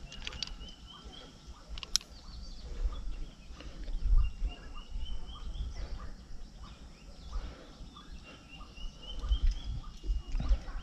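A high call of quick rising notes, repeated three times a few seconds apart, over a gusty low rumble on the microphone, with one sharp click about two seconds in.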